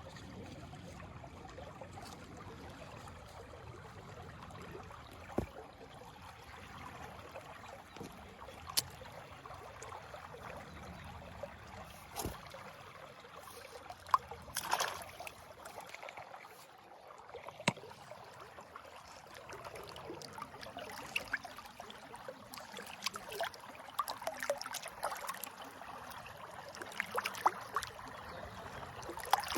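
Faint river water running, with scattered sharp clicks and small knocks throughout.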